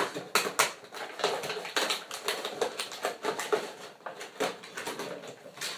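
Packaging of a boxed collectible figure being handled: irregular clicks, taps and rustles of cardboard and plastic as the figure is pushed back into its box with some difficulty.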